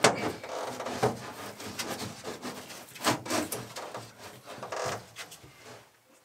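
Plywood board being shifted by hand, rubbing and scraping with a few sharp knocks, the loudest right at the start, growing quieter toward the end.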